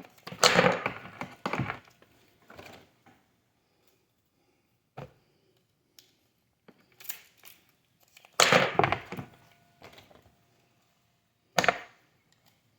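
Cat6 cable being handled and worked by hand: several short rustling, scraping bursts of plastic jacket and wire, with a few sharp clicks in between.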